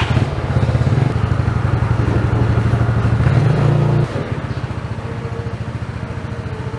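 A small engine running with a fast, even chugging beat, loud at first and dropping suddenly to a lower level about four seconds in.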